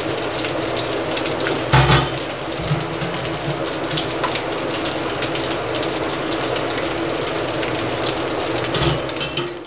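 Suzhiyam deep-frying in hot oil: a steady sizzle full of small crackling pops, with a knock about two seconds in and another near the end.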